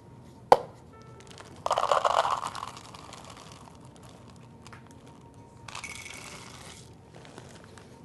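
A sharp click, then semi-sweet chocolate chips poured from the bag, rattling into a measuring cup for about a second, and a second, higher rustle near the end.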